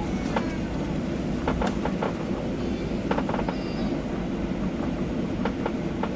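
Steady low hum inside the cabin of a Boeing 737-800 rolling on the ground, with irregular knocks and rattles every second or so as the wheels pass over bumps and joints in the pavement.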